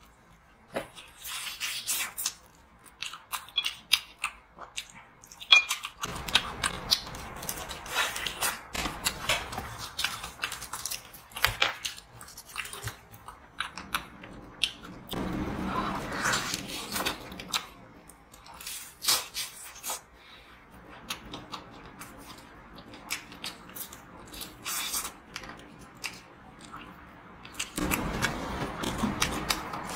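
Close-miked eating of crispy fried chicken: irregular crunches and crackles of the fried skin under bites, mixed with wet chewing.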